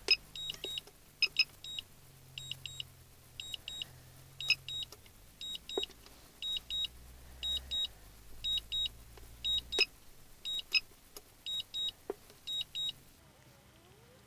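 Drone remote-controller warning beeps: short high double beeps repeating about once a second, with a few clicks, over a faint low hum, stopping about a second before the end. They go with a weak-signal warning, 'Please adjust the antennas'.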